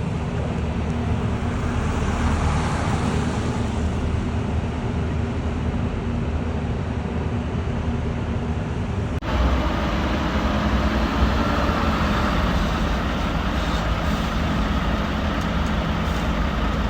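Heavy construction machinery engine running steadily, with an abrupt cut about nine seconds in to another stretch of the same kind of steady machine noise.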